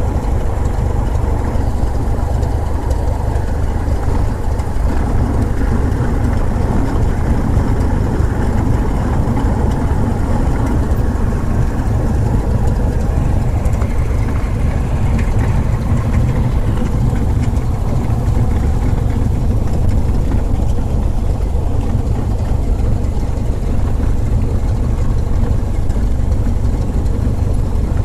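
Light propeller airplane's engine and propeller droning steadily and loudly in flight.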